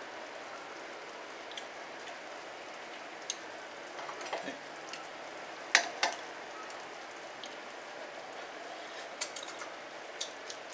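Thick curry sauce bubbling and sizzling in a wok over a gas flame: a steady sizzle with a few sharp pops, the loudest pair about six seconds in.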